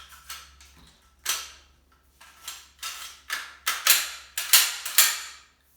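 Steel parts of a tube-fed semi-automatic shotgun clacking together as the bolt and barrel are slid back onto the receiver and magazine tube. One sharp clack comes about a second in, then a run of quick metallic knocks grows louder over the next three seconds.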